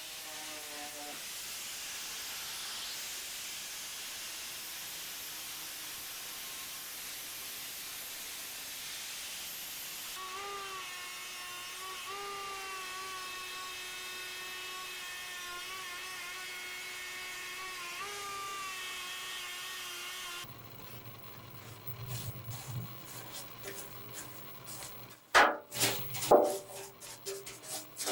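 Angle grinder working on the steel body of a pedal car, stripping paint. It starts as a steady hiss, then from about ten seconds becomes a whine whose pitch dips and wavers under load. After an abrupt change near twenty seconds come scraping and a few loud sharp knocks.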